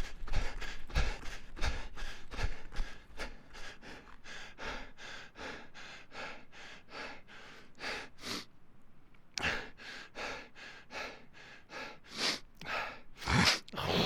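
A man breathing hard while running: quick, even in-and-out breaths for most of the stretch, then after a short lull fewer, louder breaths, the strongest near the end.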